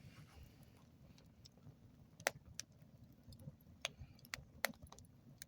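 Wood campfire crackling: scattered sharp pops, about half a dozen, over a low rumble.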